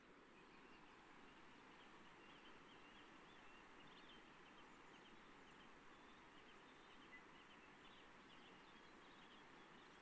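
Faint, steady rush of a shallow, stony river flowing over a riffle, with small birds chirping high and faint over it from about a second and a half in.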